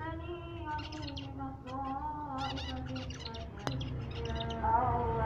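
Zebra finches calling in short chirpy bursts, several of them close together, over a lower held voice-like sound in the background. A single sharp click comes about three and a half seconds in.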